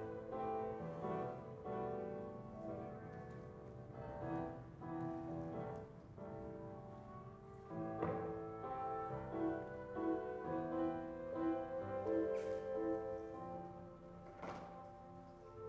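Classical music with piano and other instruments playing slow, held notes. A couple of sharp knocks cut through, about halfway and near the end.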